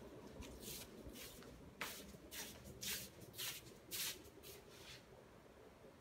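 A quick, irregular series of about a dozen short rustling scuffs that stop about five seconds in, over a faint steady low hum.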